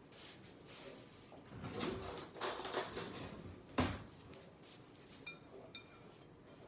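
Bowl and container being handled while straining fermented apples: a stretch of scraping and rustling, then one sharp knock of dishware near the middle and a couple of small clinks.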